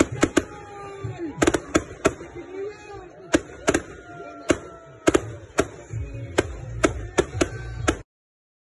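Aerial fireworks bursting overhead: about twenty sharp bangs at uneven intervals. The sound cuts off suddenly near the end.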